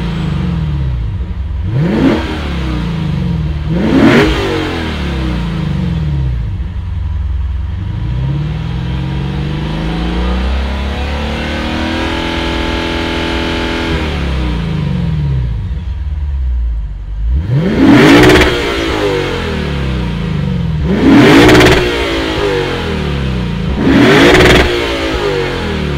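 2022 Lexus IS 500 F Sport Performance's 5.0-litre naturally aspirated V8 free-revving while parked, heard at the exhaust: two quick blips in the first few seconds, a slower climb to a held rev around the middle that falls back, then three sharp blips near the end, dropping back to idle between them.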